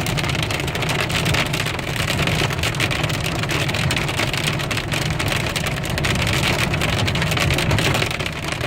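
Hail and rain striking a car's roof and windshield in a dense, steady patter of many small hits, heard from inside the car over a steady low road rumble.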